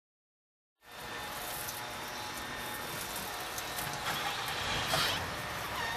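Steady background noise that comes in just under a second in, with a brief brighter rustle about four to five seconds in.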